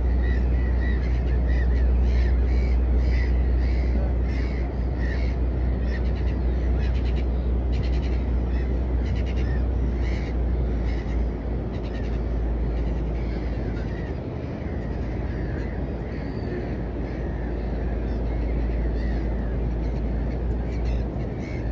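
Birds calling with many short, repeated calls, dense at first and thinning out after the first half, over a steady low rumble.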